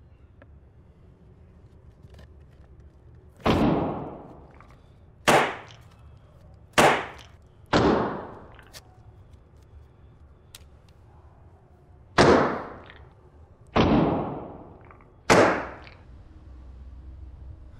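Seven loud, sharp bangs, each echoing away over about a second, coming irregularly in two groups: four close together, then a pause, then three more.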